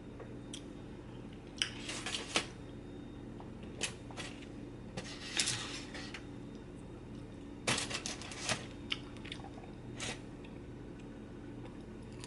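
Close-miked eating of a cheese quesadilla: crisp, crackly bites and chewing in several short clusters with pauses between them.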